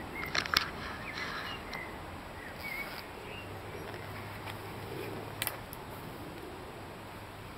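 Handling noise: a few sharp clicks and light rustling as a wet fabric weigh sling is wrapped around a large catfish lying on an unhooking mat. A faint bird chirp comes about three seconds in.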